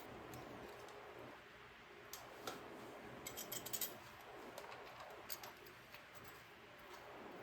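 Faint scattered clicks and light taps of small metal parts being handled during axle assembly, with a cluster of quick clicks about three to four seconds in, over a low steady hum.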